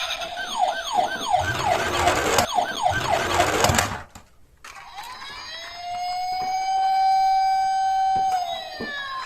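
Toy emergency vehicles' electronic sirens. A fast, repeating falling sweep, about three a second, with a rough noise under it, cuts off about four seconds in. After a short pause a second siren rises to a held wail and starts to fall near the end.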